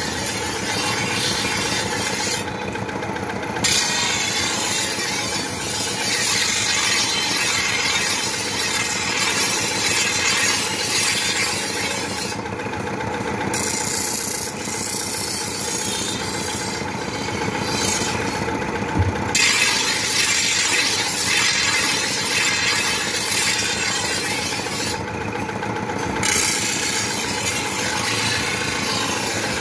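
A steel blade being ground against a belt-driven grinding wheel, a harsh rasping scrape that breaks off briefly about four times as the blade is lifted. Under it, the stationary engine that drives the wheel runs steadily.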